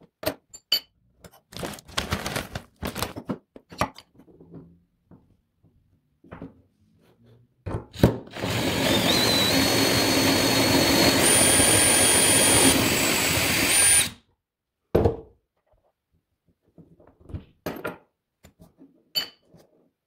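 Cordless drill turning a manual coffee grinder through a 3D-printed adapter, grinding beans for about five and a half seconds with a steady motor whine that rises in pitch as it gets up to speed. Before and after it come scattered clicks and knocks of the grinder's metal parts being handled.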